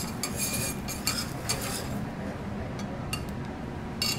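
Cutlery clinking against plates and dishes: a scattering of light clinks, some with a short ring, over a steady low room hum.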